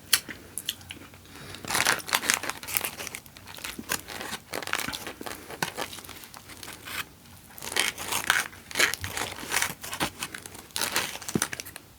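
Close-up crinkling and crunching of eating and handling food, in irregular bursts of sharp crackles a few seconds apart.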